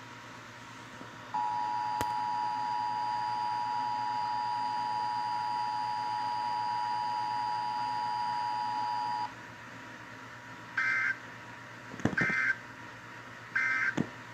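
Emergency Alert System attention signal: a steady two-pitch tone held for about eight seconds. Then three short, harsh digital data bursts of the alert code, about a second and a half apart.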